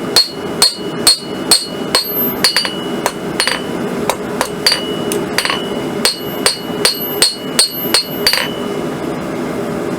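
Hand hammer striking the end of a hot 1/4-inch square steel bar at the edge of an anvil, about two ringing blows a second, stopping near the end.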